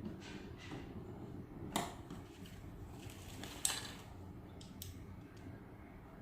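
Handling noise: two sharp clicks or knocks, nearly two seconds apart, with faint rustling over a low steady background.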